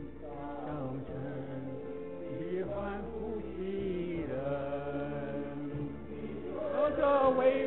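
Slow sung worship music: a voice carrying a melody over sustained held accompaniment notes, swelling louder near the end.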